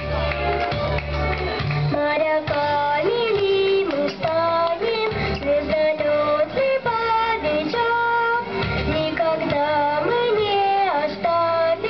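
A girl singing a children's song in held, melodic phrases over instrumental accompaniment with a steady bass line.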